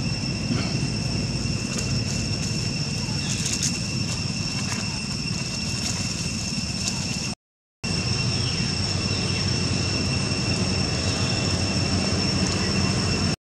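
Steady, high insect drone holding one pitch, over a constant low rumble; the sound cuts out for a moment about halfway through and again near the end.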